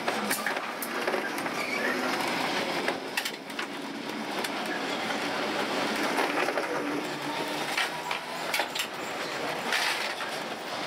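Old electric tram running on street rails, heard from inside the car: a steady rumble of the wheels on the track with frequent rattling clicks and knocks from the car body.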